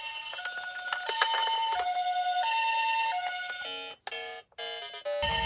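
Electronic two-tone ambulance-style siren alternating between a higher and a lower note, with a second siren sounding over it. It cuts out briefly about four seconds in, and a low rumble starts near the end.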